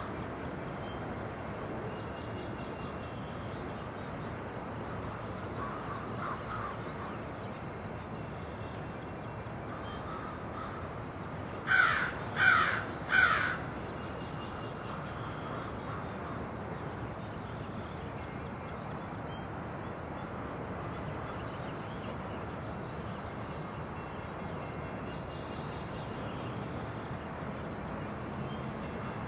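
A crow caws three times in quick succession about twelve seconds in, with fainter caws earlier, over the steady rolling noise of a CN double-stack container freight train passing.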